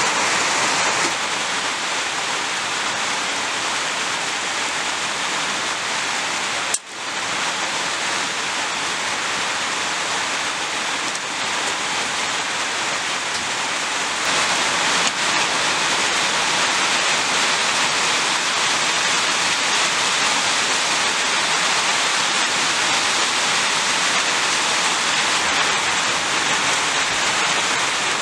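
Steady hiss of rain falling, with a brief sudden drop-out about seven seconds in.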